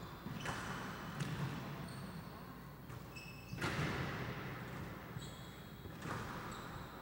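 Squash rally: a squash ball struck by rackets and smacking off the court walls, one hit about every second, with the loudest a little past halfway, and short high squeaks of players' shoes on the court floor.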